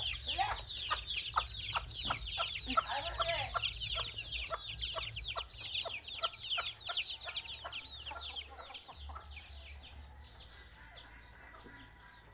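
Chicks peeping: a dense stream of short, high, falling peeps, several a second, with a hen's lower clucks now and then. The peeping thins and fades after about eight seconds.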